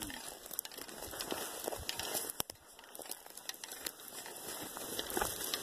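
Footsteps through dry grass and brush: irregular crunching, crackling rustles.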